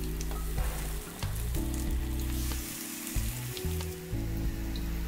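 Rava-coated raw banana slices sizzling in shallow oil on a hot flat tava, with a steady frying hiss and a few light clicks as pieces are set down. Background music with held chords plays underneath.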